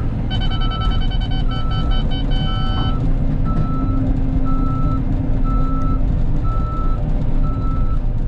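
Cat 313 excavator's diesel engine running, with its travel alarm beeping steadily about once a second as the machine tracks back. For about the first three seconds a second, higher beeping with several pitches sounds with it.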